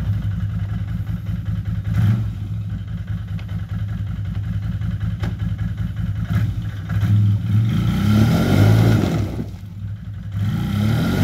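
Can-Am Outlander 500 ATV's V-twin engine running steadily under load on the tow strap, then revved hard about seven seconds in and again near the end as its tyres spin on the grass.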